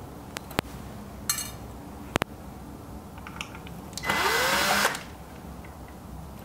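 Small clicks as a screwdriver works the silver Phillips screws on a Baratza Esatto scale's load cell housing. About four seconds in, a powered screwdriver whirrs for just under a second with a rising whine, backing out a screw.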